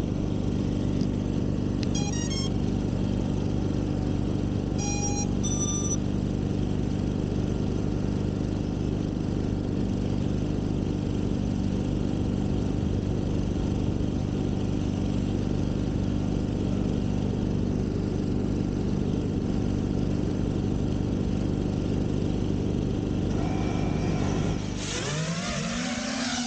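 A steady low hum, broken about 2 and 5 seconds in by short electronic beep tones, typical of a quadcopter's speed controllers starting up once the battery is plugged in. Near the end the quadcopter's brushless motors spin up with a whine that rises and falls in pitch.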